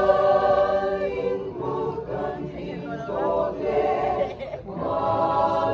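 Church choir singing a cappella in several parts, holding long chords between shorter phrases.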